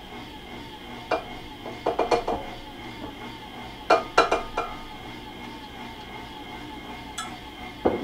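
Glass cup clinking and tapping against the rim of a stainless steel stand-mixer bowl as flour is tipped in: a few sharp clinks in small clusters. Under them runs the steady hum of the stand mixer working at low speed.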